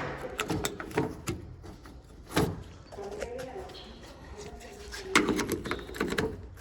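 Irregular sharp metal clicks and clunks from working on a van's door latch assembly, with a quick run of knocks near the end.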